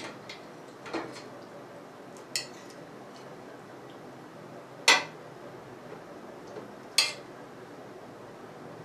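Metal cookware clinking as a steamer pot is set up: a handful of sharp knocks, the two loudest about five and seven seconds in.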